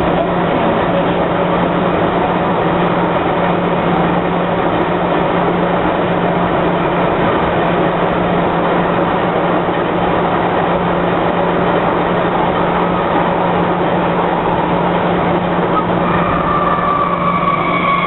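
Onboard running noise of an MTR M-Train motor car, car C456: a steady rumble of wheels on rail with a constant low hum. About two seconds before the end a motor whine comes in and falls in pitch, the sign of the train beginning to slow.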